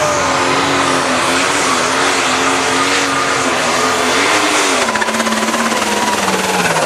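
Turbocharged diesel engine of a light pro stock pulling tractor running flat out while dragging the weight sled, its pitch wavering up and down. About five seconds in the revs start to fall steadily as the pull comes to an end.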